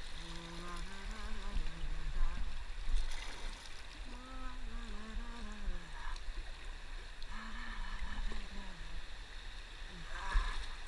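Shallow river riffle rushing around a kayak, with paddle strokes splashing in the water. A person's voice makes long, drawn-out, wordless sounds over the water noise for most of the time.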